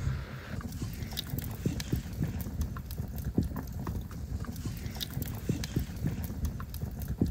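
Wood fire crackling in a steel campfire ring, with irregular sharp pops and clicks, several a second.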